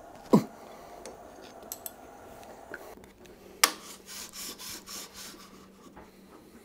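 Workshop handling of tools and metal parts: a sharp knock, a few light clicks, a second sharp knock, then a short run of rubbing or scraping strokes. A faint steady hum starts partway through.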